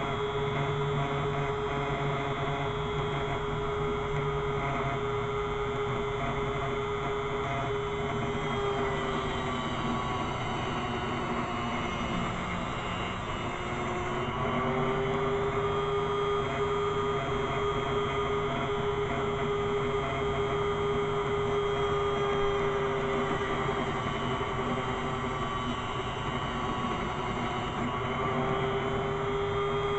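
Electric grinder running steadily with a pitched hum while the steel back edge of a knife blade is ground square. The tone sags and fades for a few seconds around the middle, then comes back.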